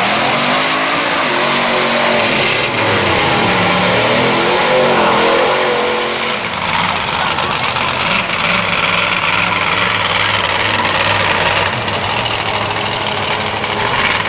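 Off-road mud truck's engine revving hard, its pitch rising and falling repeatedly as the tires spin through the mud. About six seconds in, the sound changes to a big engine running steadily at a lower pitch.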